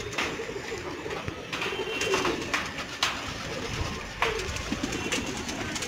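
A flock of domestic pigeons cooing, with a few sharp wing claps as birds take off and land.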